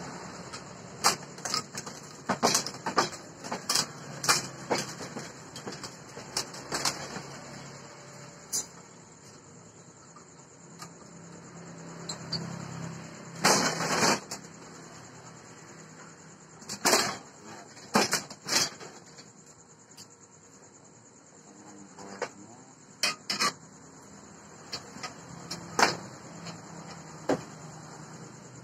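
Steel parts of a homemade drill stand being handled and fitted: irregular sharp metal clinks and knocks, with a few short scraping sounds, over a faint steady hiss.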